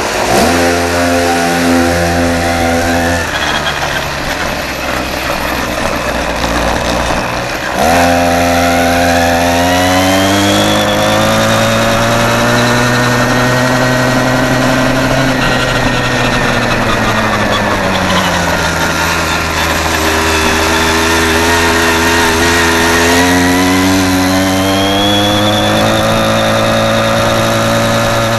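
Small gasoline scooter engine running while riding, purring after its carburettor jets were bored out and cleaned. It settles lower about three seconds in, picks up sharply about eight seconds in and climbs in pitch as the scooter accelerates, eases off briefly, then speeds up again near the end.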